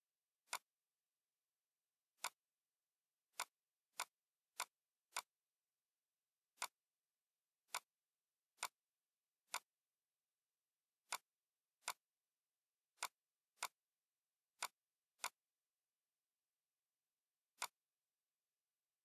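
Computer mouse button clicking: about seventeen single, sharp clicks at uneven intervals, with silence between them.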